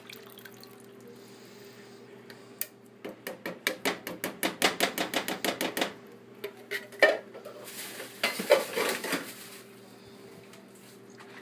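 Metal kitchenware clatter as a large can of crushed tomatoes is emptied into the stew pot: a quick run of sharp metallic taps for about three seconds, a single louder clank, then a short scraping clatter.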